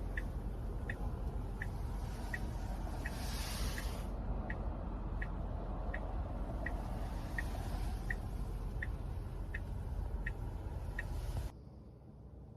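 Road noise inside a moving car with a turn-signal indicator ticking steadily, about seven ticks every five seconds. Near the end it cuts abruptly to a much quieter room.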